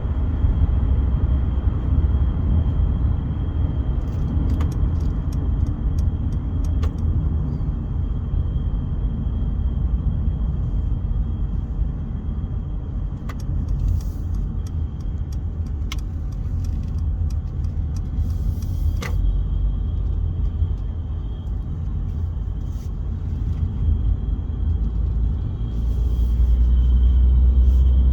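Cabin of a 2014 Mercedes W205 C-Class driving: low engine and road rumble with a thin, steady high-pitched ringing that swells with the rumble near the end, plus a few light rattles. The ringing is high-pressure fuel pump noise from the engine bay getting into the cabin through a faulty steering shaft boot in the driver's footwell.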